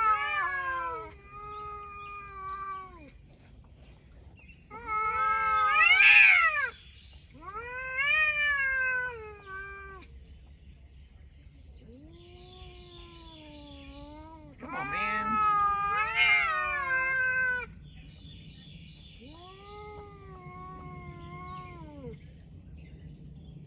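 Two cats squaring off nose to nose, trading long, drawn-out yowls (caterwauling) that rise and fall in pitch. There are about seven yowls of one to three seconds each, with short pauses between; the loudest come a few seconds in and in the middle.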